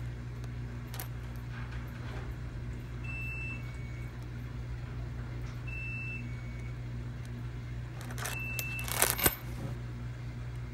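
Handling noise from a fabric purse as a toggle is worked through its grommet: scattered light clicks and rustles, with a louder burst of rustling and clicking about nine seconds in, over a steady low hum.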